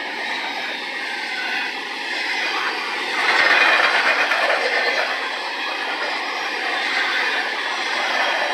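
Double-stack intermodal well cars of a freight train rolling past: a steady noise of steel wheels on the rails, growing louder and brighter for about a second a little over three seconds in.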